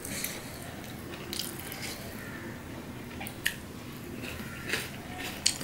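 Wet squishing and chewing sounds of hand-eating: rice being mixed with dal and vegetables by fingers on a steel plate and chewed, with a few short sharp clicks, one about three and a half seconds in and two near the end.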